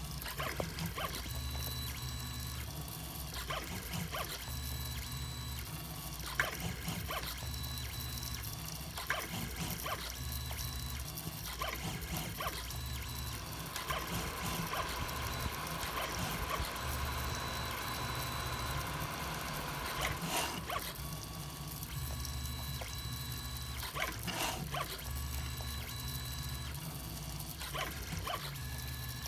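3D printer's stepper motors whining as the print head and bed move, the tone jumping to a new pitch every second or so with a low hum cutting in and out and occasional clicks. For several seconds in the middle the whine gives way to a buzzier, hissier sound before the stop-start tones return.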